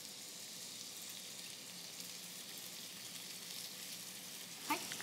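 Ground chicken and chopped long onion sizzling faintly and steadily in hot sesame oil in a frying pan, with one short sharp sound near the end.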